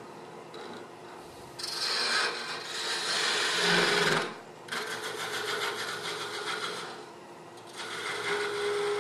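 Skew chisel taking peeling cuts across the face of a piece of scrap wood spinning on a lathe, wasting it flat: a scratchy cutting noise in three passes with short lulls between, starting after a quieter first second or so.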